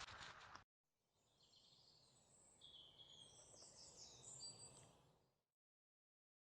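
Faint birds calling, with many short, high chirps overlapping from about a second in until about five seconds, then cut off to silence.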